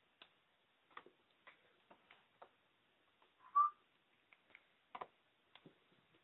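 Small plastic clicks and taps as a screwdriver pries at the hinge cover of a Dell XPS M1210 laptop, about a dozen at irregular intervals. A single short squeak about three and a half seconds in is the loudest sound.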